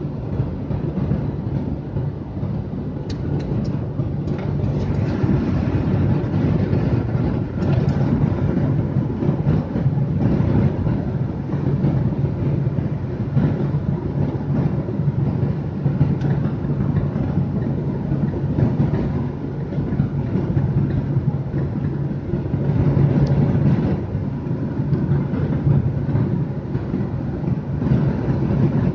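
Steady road noise inside a car's cabin at highway speed: tyre rumble on asphalt with a low, even engine drone.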